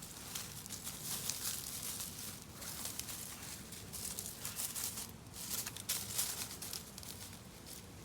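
Irregular rustling and crinkling, quick scratchy crackles one after another.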